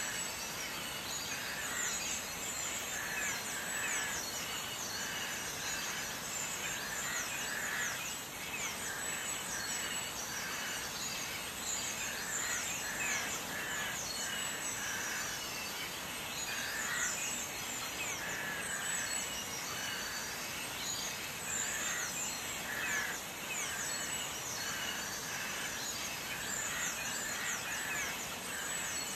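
Small birds chirping repeatedly over a steady hiss.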